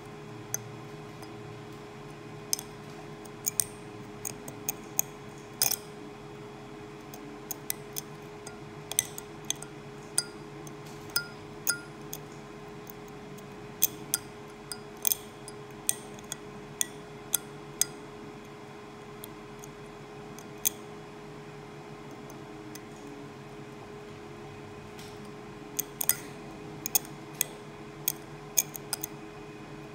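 Steel dental explorer tip clicking and scraping on a 3D-printed model tooth while probing its simulated decay, in irregular sharp ticks with a pause of several seconds about two-thirds of the way through. A faint steady hum underneath.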